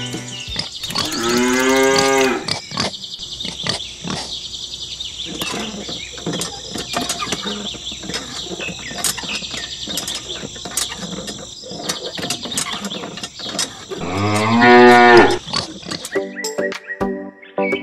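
Cow mooing twice: one long moo about a second in and another near the end. Between the moos, a steady high hiss with many short clicks and ticks.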